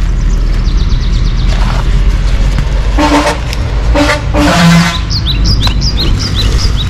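A vehicle horn beeps twice, short, about three and four seconds in, over a steady low traffic rumble. Near the end a bird gives a quick run of repeated high chirps.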